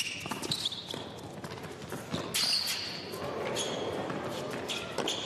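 Tennis rally on an indoor hard court: sharp pops of the ball off the racquets, and high squeaks of shoes on the court surface. A low crowd murmur builds in the hall from about halfway through.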